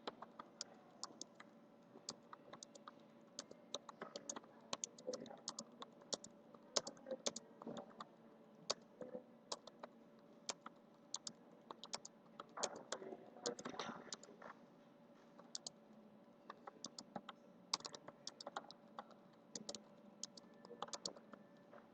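Computer keyboard being typed on quickly, a dense, uneven stream of key clicks with a short lull about two-thirds of the way through.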